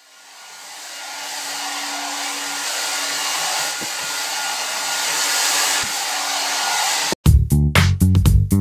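Hair dryer running steadily, a rushing blow with a faint motor hum, fading in at the start. It cuts off suddenly about seven seconds in, when funky music with bass guitar and drums starts.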